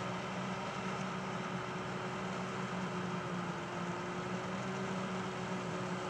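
Diesel engines of a maize forage harvester and its silage trucks running steadily at work: an even low hum with a constant tone above it.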